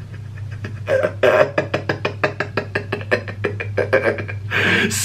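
A man's wordless voice in quick repeated pulses, about seven a second, over a steady low hum.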